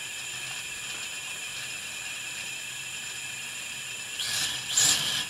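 Brushless Emax 2205S motors of an FPV quadcopter spinning on the bench without propellers, a steady high whine. Two short rushes of noise come near the end.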